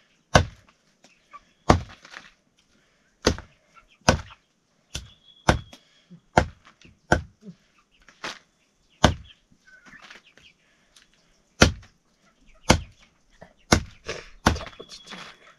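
Chopping with a knife on a board: a string of sharp, irregular chops, mostly about a second apart, with a short pause about two-thirds of the way through.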